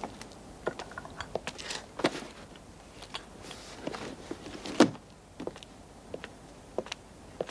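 Someone moving about and handling stacks of bundled paper files: scattered footsteps and knocks with rustling paper, and one sharper thud a little under five seconds in.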